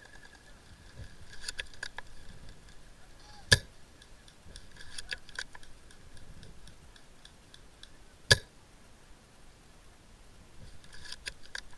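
Tokyo Marui M24 spring-powered bolt-action airsoft sniper rifle fired twice, two sharp snaps about five seconds apart. Bursts of faint clicking come between the shots.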